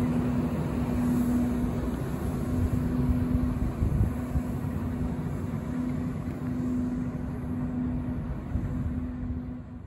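Asphalt distributor truck running as it moves slowly away, a steady engine rumble with a constant hum over it, fading near the end.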